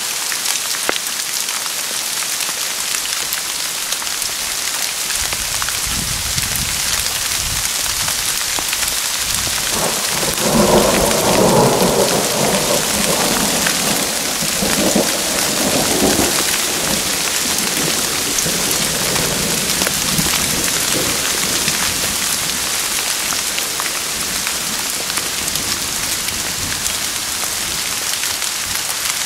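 Steady rain hissing down, with a long roll of thunder that builds from about five seconds in, is loudest a few seconds later, and rumbles away over the next ten seconds.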